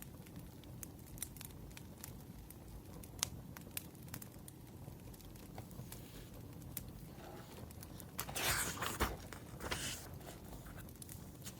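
Wood fire crackling with scattered sharp pops over a low hiss. A brief paper rustle about eight and a half seconds in, with a smaller one a second later.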